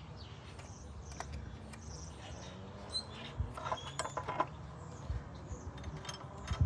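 Irregular clicks and light metallic knocks of hand tools and fittings being worked on an engine during a high-pressure fuel pump removal, thickest in the second half.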